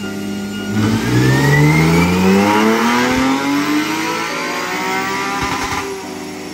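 Porsche 911's naturally aspirated flat-six, breathing through an aftermarket exhaust, making a full-throttle pull on a chassis dyno. The revs climb steadily in pitch from about a second in, hold loud for several seconds, then ease off near the end. The engine is freshly flashed with a Cobb Accessport tune.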